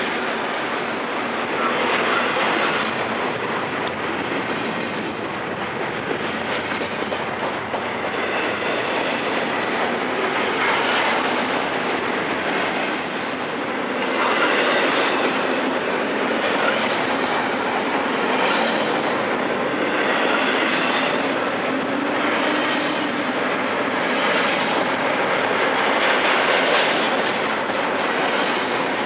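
Double-stack intermodal container train rolling past close by: the steady rolling rumble and clatter of freight-car wheels on the rails.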